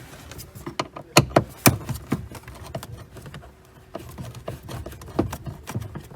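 Irregular clicks and knocks of hands and a screwdriver working on plastic car dashboard trim as its screws are taken out, with two sharper knocks a little over a second in.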